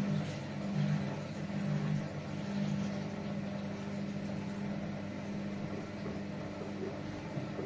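Hotpoint Ariston washing machine running a Quick Wash 60 programme: a steady mechanical hum from its motor or pump that pulses for the first few seconds, then holds even.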